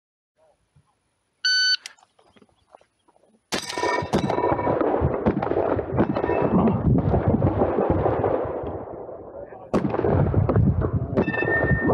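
A shot timer gives one short beep. About two seconds later a Benelli M2 semi-automatic 12-gauge shotgun fires in rapid strings at steel plates, and the shots are mixed with metallic clangs and ringing from hit plates. The firing eases off briefly near the end, then starts again.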